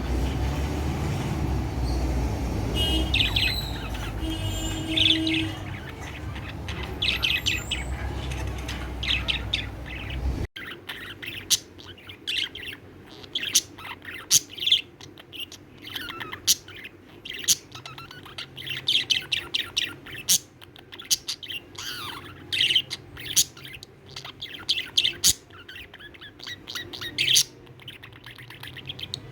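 Budgerigar chirping and chattering in many quick, short, high calls. For about the first ten seconds a low rumble lies under the chirps, then it cuts off suddenly and the chirps go on over a quiet background.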